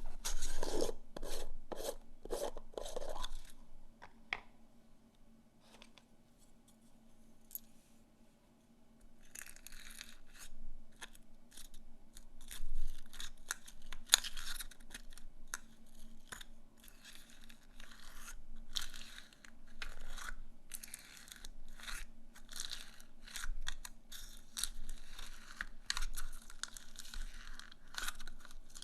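Slime being squeezed and worked by hand, a run of crunchy crackles and sticky rustles. A loud flurry comes first, then a few seconds of near quiet, and the crackling picks up again at about nine seconds and keeps going.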